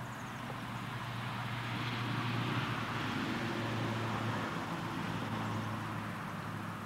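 A vehicle passing by: a broad rushing noise that swells to its loudest about two to three seconds in and then fades, over a steady low hum.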